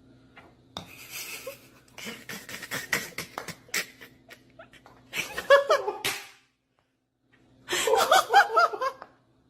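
A person laughing in two loud bursts, about five seconds in and again near the end, after a run of sharp clicks and knocks.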